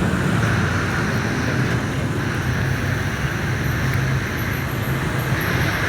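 A steady low mechanical rumble with a hum underneath, holding level throughout.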